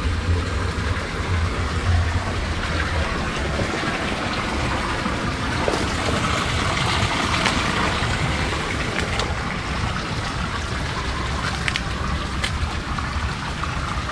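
Water trickling and running along a small drainage channel, a steady rushing hiss, with a low rumble underneath.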